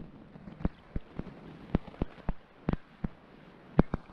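Irregular muffled knocks and splashes of water against an underwater camera's housing, a few each second, over a faint watery hiss.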